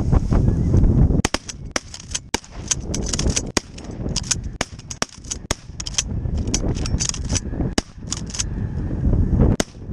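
A rapid, irregular volley of shotgun blasts from several hunters firing at a flock of snow geese. Many shots follow one another closely, starting about a second in and running for about eight seconds.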